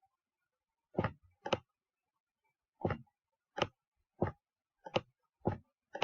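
Slow, irregular keystrokes on a computer keyboard: about eight separate key clicks, the first about a second in, with a pause of over a second in the middle.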